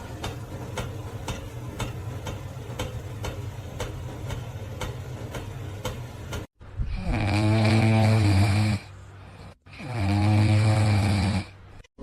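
An animal snoring loudly: two long snores, one after the other, in the second half. Before that, a steady ticking about three or four times a second over a low hum.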